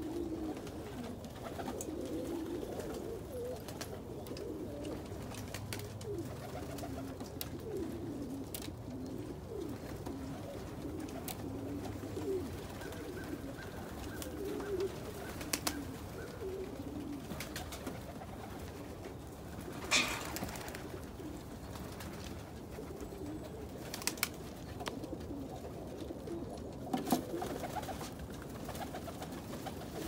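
A flock of domestic pigeons cooing continuously, many low warbling coos overlapping. A few sharp knocks break in now and then, the loudest about two-thirds of the way through.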